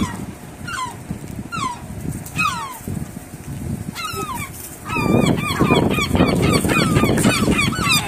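Gulls calling with short downward-sliding cries, one every second or so. About five seconds in, more gulls join and the cries crowd together and overlap over a louder rushing noise.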